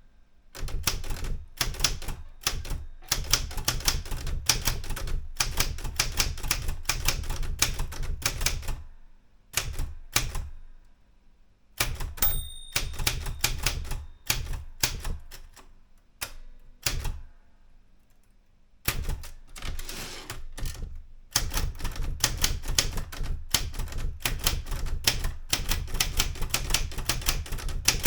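Erika 105 manual typewriter being typed on in quick runs of key strikes, broken by a couple of short pauses. About midway there is a single short ring, the carriage's line-end bell.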